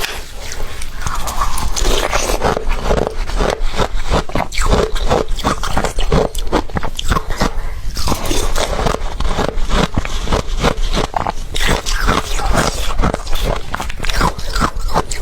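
Ice being bitten and chewed, a dense run of rapid, irregular crunches.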